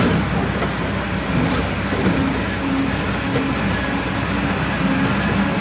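Kobelco SK200 excavator's diesel engine and hydraulics running under load, with a whine that shifts in pitch as the arm moves. A splash of water comes right at the start as the bucket plunges into the river, and a couple of short knocks follow.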